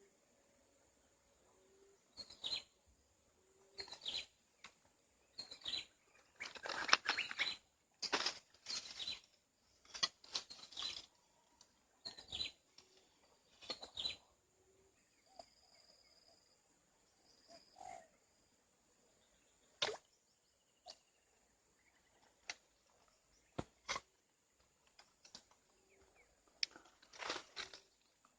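Birds calling and chirping, with a short low call repeating every second or two. Short sudden rustles and knocks come now and then, most of them in the first half.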